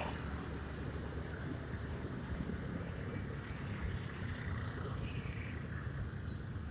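Honda Scoopy scooter riding along a street: a steady low engine and road rumble, with wind on the microphone.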